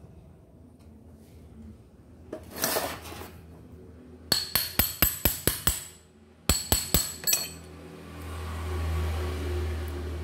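Rapid metal-on-metal tapping on the parts of a dismantled rotary hammer drill: a run of about eight sharp, ringing clinks at roughly five a second, a short pause, then about five more. A brief scraping sound comes before the taps, and a low hum comes in near the end.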